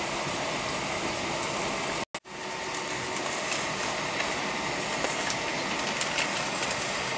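Cabin noise inside an Airbus A320 with its IAE V2527 engines running on the ground while taxiing: a steady rumble and hiss with light knocks from the wheels rolling over the taxiway. The sound cuts out completely for a split second about two seconds in.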